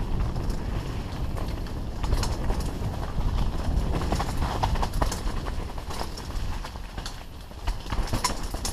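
Mountain bike descending a rough dirt trail at speed: a steady low rumble of wind and tyre noise, with scattered rattles and knocks from the bike over bumps.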